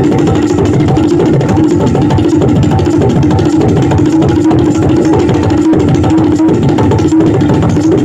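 Tabla played in a fast, unbroken run of strokes with the treble drum's pitch ringing steadily over it, imitating the rumble of a train crossing a bridge.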